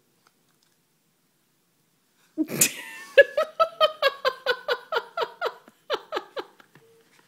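A person's high-pitched laughter, breaking out suddenly about two and a half seconds in and running on as a quick string of laughs, each dropping in pitch, fading out shortly before the end.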